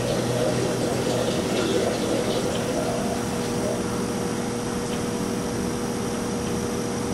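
Steady rush of running water with a low hum underneath, fading slightly.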